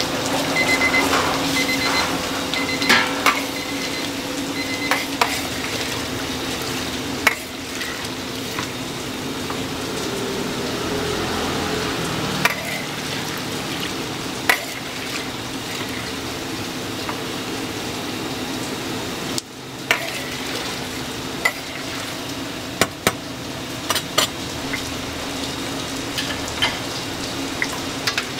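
Sweet potato balls deep-frying in a pot of hot oil, a steady sizzle, with sharp knocks of a metal utensil against the pot every few seconds. A quick run of short high electronic beeps sounds in the first few seconds.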